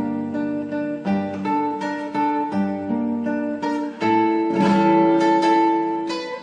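Guitar music: plucked, strummed notes in a steady rhythm, with a louder held chord about four seconds in.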